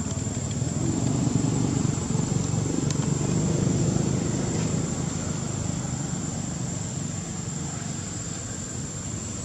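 Low rumble of a passing motor vehicle, swelling about a second in and fading away after about five seconds.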